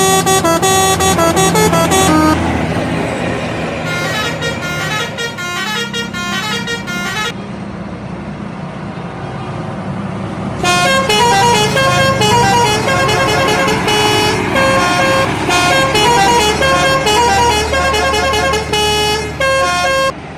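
Bus telolet multi-tone air horns playing quick melodic tunes in three goes: a loud one at the start lasting about two seconds, a fainter one from about four to seven seconds in, and a long loud one from about eleven seconds in that cuts off suddenly near the end. An engine runs steadily underneath.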